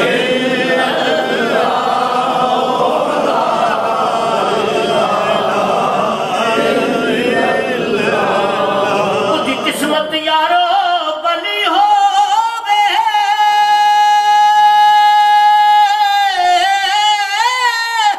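Unaccompanied devotional naat singing. For the first half several male voices chant together. About halfway in, a single male voice takes over and holds one long high note for several seconds, wavering in pitch near the end.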